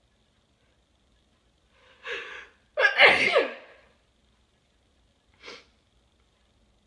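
A person sneezing loudly once: a gasping intake of breath about two seconds in, then a sudden explosive sneeze with a cry that falls in pitch. A brief, quieter sound follows a couple of seconds later.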